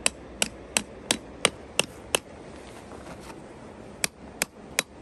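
A hammer striking a metal tent stake to drive it into the ground, in sharp taps about three a second. Seven strikes, a pause of nearly two seconds, then three more near the end.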